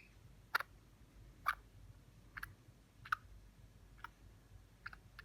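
Baby grey-headed flying-fox hiccuping: a string of short, sharp hics about once a second.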